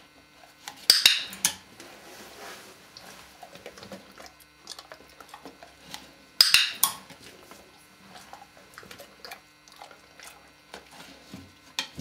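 Dog-training clicker clicked twice, about a second in and again about six and a half seconds in, each a sharp metallic click-clack as it is pressed and released, marking the moment the dog works the strap. Faint light tapping between the clicks.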